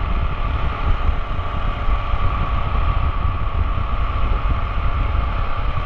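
A 2011 KTM 690 single-cylinder motorcycle riding along at a steady pace, heard with heavy wind rumble on the microphone and a steady engine hum, with no change in speed.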